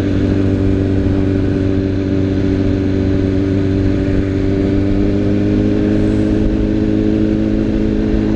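Sport motorcycle's engine running at a steady cruising speed while riding along a road, a constant drone.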